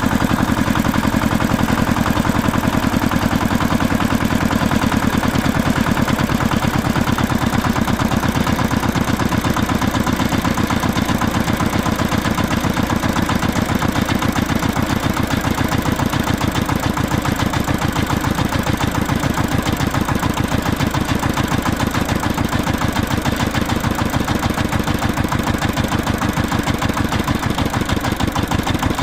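Tractor engine running steadily with a fast, even beat of firing pulses.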